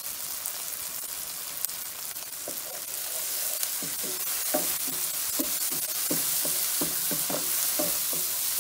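Chopped onions, tomatoes and curry leaves sizzling in oil in a nonstick pan. From about two and a half seconds in they are stirred, with repeated short scraping strokes against the pan, and the sizzle grows louder.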